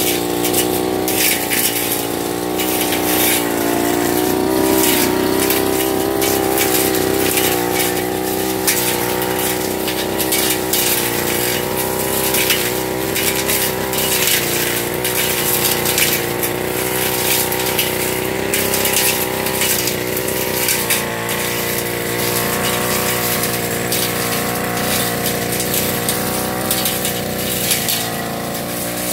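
Backpack brush cutter engine running continuously under load while mowing thick weeds, its pitch wavering up and down as the cutting head swings through the growth, with frequent short sharp ticks on top.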